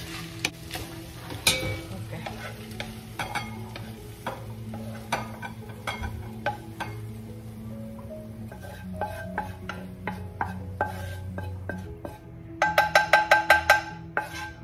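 Wooden spatula stirring and scraping ground beef filling in a nonstick frying pan, a string of short scrapes and knocks with a little sizzling. Near the end comes a quick run of about ten sharp, ringing clinks.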